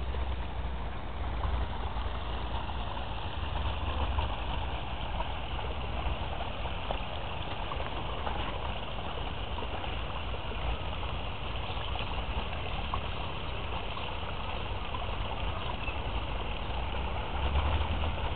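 Steady rushing noise of flowing creek water, with a few low rumbles near the start, around four seconds in and near the end.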